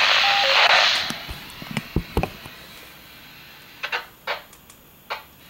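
Yaesu VX-8DR handheld transceiver's speaker hissing with received static for about a second, then cutting off. Afterwards a few low handling thumps and several short light clicks on the radio.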